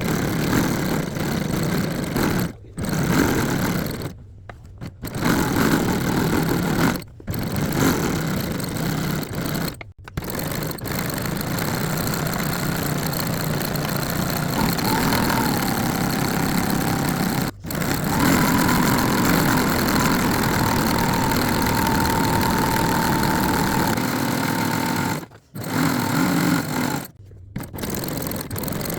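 Janome domestic sewing machine stitching a straight stitch for free-motion embroidery. It runs in long bursts and stops briefly several times.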